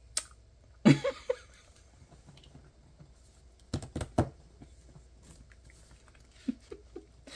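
Paper stickers being peeled from their backing and pressed onto a notebook page: soft paper crinkles and a few sharp clicks, loudest in a quick cluster of three about four seconds in.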